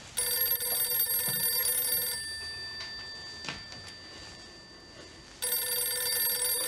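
Landline telephone ringing: two rings of a steady multi-tone bell, the first about two seconds long, the second starting about three seconds later and running to the end.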